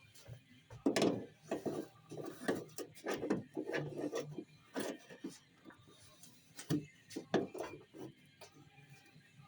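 Irregular rubbing, scraping and light knocks of hands and parts at work, with a few sharper clicks about a second in and again near seven seconds.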